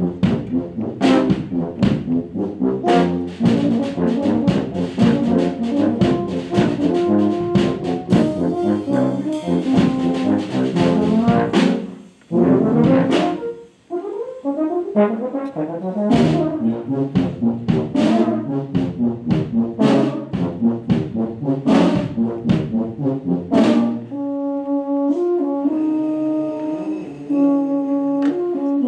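Brass ensemble music, low brass such as trombones carrying the line over a steady drum beat. Just past the middle it breaks off briefly into sliding brass notes, and near the end the drums drop out under held brass chords.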